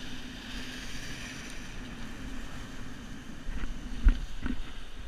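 Sea surge washing and breaking over rocks, with wind on the microphone. Near the end come a few sharp knocks, the loudest about four seconds in.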